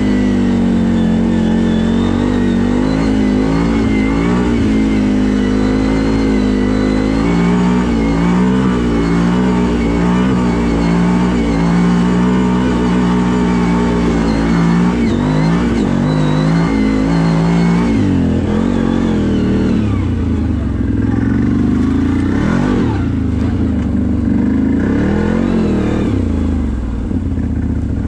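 CFMoto 1000 ATV's V-twin engine running while riding, the revs rising and falling with the throttle. About two-thirds of the way in the engine note drops lower and swings up and down more.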